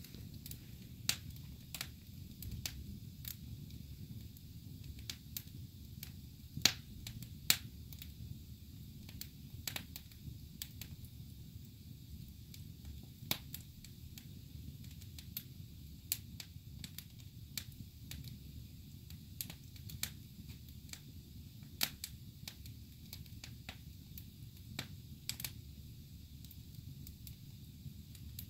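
Logs burning in a fireplace, crackling with irregular sharp pops, the loudest a pair about seven seconds in, over a steady low rumble.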